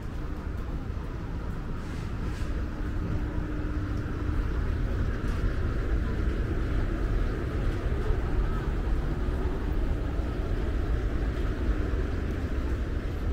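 Busy city street ambience: a steady low traffic rumble with general hubbub, growing a little louder about four seconds in.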